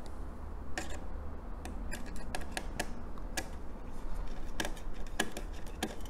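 Small screwdriver working the screws of a motherboard's M.2 SSD heatsink: a scatter of light, sharp metal clicks and ticks at uneven intervals as the screws are backed out.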